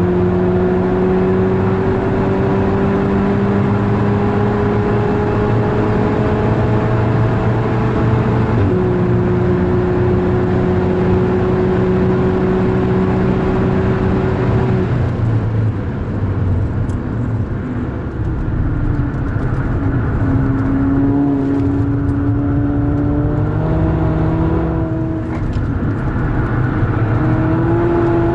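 VW Golf 6R's 2.0-litre turbocharged four-cylinder engine under hard acceleration, revs climbing slowly to an upshift about nine seconds in, then climbing again. About halfway through the driver lifts off and the revs fall with downshifts, then the engine pulls again with two more upshifts near the end.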